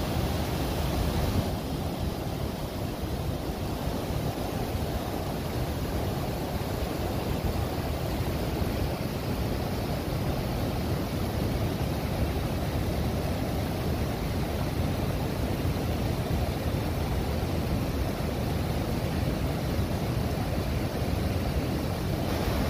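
Waterfall and rapids pouring over rock ledges: a steady rush of water, strongest in the low range, with a slight change in tone about a second and a half in.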